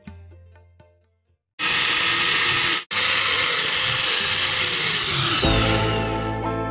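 Music dies away into a brief silence. A loud, steady hiss follows, cutting out for an instant, with two high whistles in it that slide downward. Music with a deep bass comes back in near the end.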